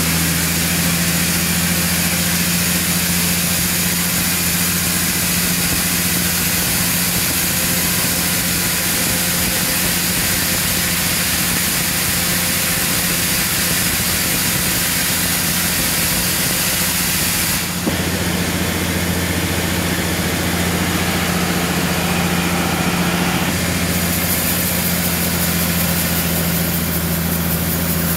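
Large vertical band sawmill running and ripping through a thick, dry tamarind log: a steady loud drone of the motor and blade with the hiss of the cut. The sound changes abruptly once, about two-thirds of the way through.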